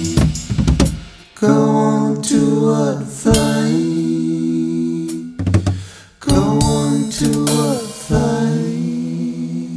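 Closing bars of a rock song: a few drum hits near the start, then long held sung notes with acoustic guitar, in four phrases with short breaks between them.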